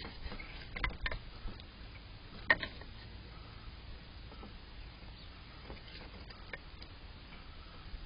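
A few faint, irregular clicks and taps over a low steady background, the sharpest about two and a half seconds in.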